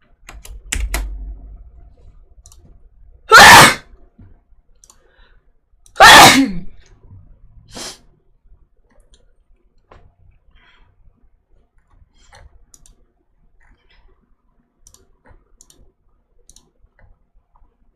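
A woman sneezing loudly twice, about three seconds apart, each sneeze a short, sharp burst.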